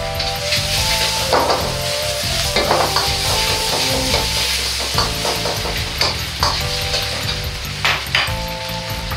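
Sliced sausage and diced onion sizzling in a wok while a metal wok ladle stirs them, scraping and clacking against the wok several times over the steady frying hiss.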